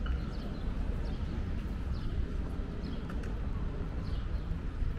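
Small birds chirping in short, quick, falling notes, repeated every half second to a second, over a steady low rumble of street noise.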